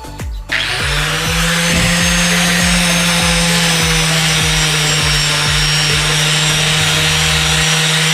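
Electric buffing tool spinning up about half a second in, then running steadily with a constant hum while it polishes a stainless-steel exhaust elbow with buffing compound. Background music with a steady beat plays underneath.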